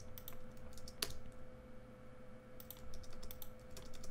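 Computer keyboard keystrokes, scattered and in short clusters with a louder single click about a second in, over a faint steady electrical hum.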